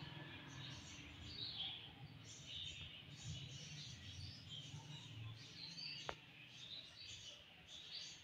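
Faint, continual chirping of small birds, many short high chirps, with a single sharp click about six seconds in.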